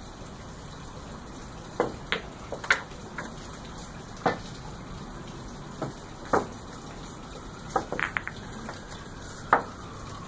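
Pool balls clicking: a cue strike and balls knocking together on the table, then balls taken from the pockets and set down, clacking against one another. The clicks come singly and in quick clusters, starting about two seconds in, over a steady background hiss.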